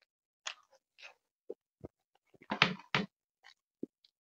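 Close-miked chewing and lip smacking of someone eating chicken and rice: scattered soft wet clicks, with a louder cluster of smacks a little past the middle.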